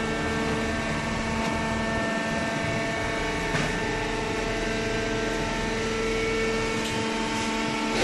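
Hydraulic cardboard baler running: a steady machine hum, with one short click about three and a half seconds in.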